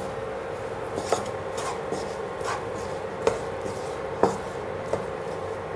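Wooden spatula stirring and scraping onions and tomatoes sautéing in a non-stick kadai, with a few light knocks of the wood against the pan.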